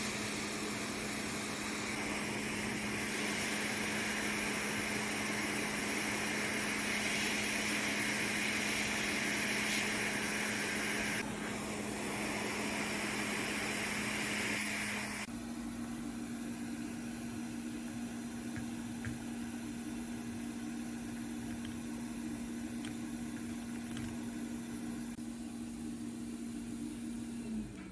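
A small motor or fan humming steadily under a hiss. About halfway through the hiss drops and the hum steps slightly higher, and near the end the hum winds down in pitch and stops, like a motor switched off.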